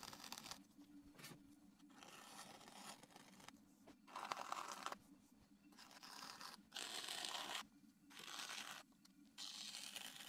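Trimming tool scraping clay from the underside of a large platter spinning on a potter's wheel: a series of scratchy passes, each about half a second to two seconds long with short gaps between, over a low steady hum.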